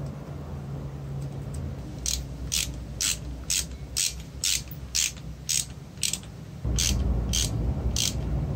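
Regular mechanical clicking, about two sharp clicks a second, starting about two seconds in, over a low rumble that grows louder near the end.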